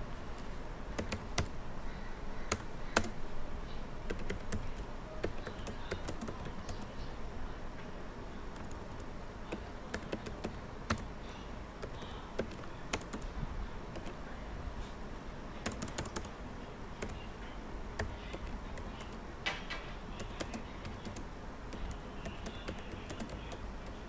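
Computer keyboard typing: slow, irregular keystrokes clicking one at a time over a steady low hum.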